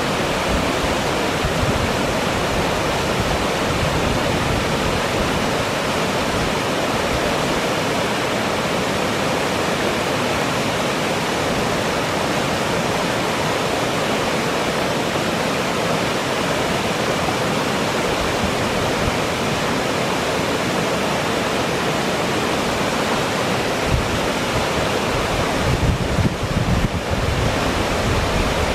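Toxaway Falls cascading down a sloping rock face into the pool below: a steady, even rush of falling water. Over the last few seconds, uneven low rumbling bumps of wind hitting the microphone are added.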